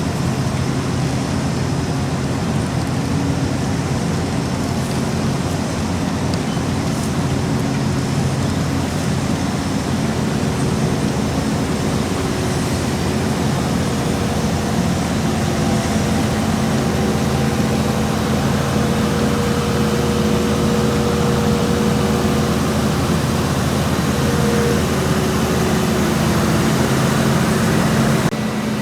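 Diesel engines of heavy asphalt paving and compaction machinery running steadily, with a constant low hum; a higher steady engine tone stands out through the middle and later part.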